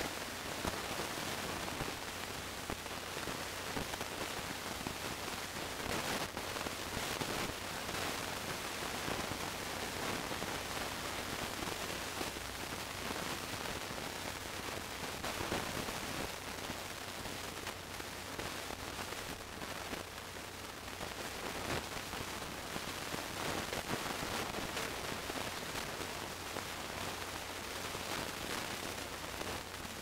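Steady static hiss with a low hum underneath and a few faint crackles.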